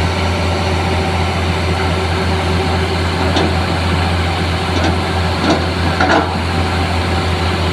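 Heavy diesel engine running steadily at a low, even speed. Four short knocks sound over it in the second half.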